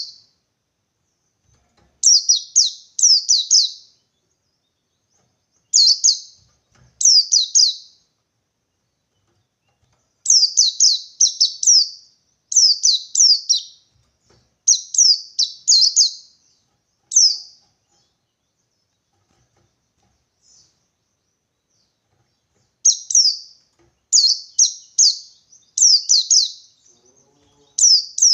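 White-eye (pleci) singing its wild-type 'ngalas' challenge song, a call for a rival. It comes in short phrases of two or three quick, high notes, each sliding down in pitch. The phrases repeat after pauses of a second or two, with a longer gap of about five seconds past the middle.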